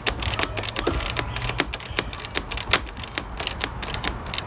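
Ratchet wrench clicking rapidly and unevenly as it tightens the nut on a car battery's negative terminal clamp.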